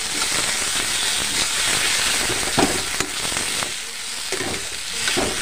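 Onions and ground masala sizzling in hot oil in a steel kadhai, being stirred with a steel spatula that scrapes and knocks against the pan a few times. This is the bhuna stage, frying the masala down.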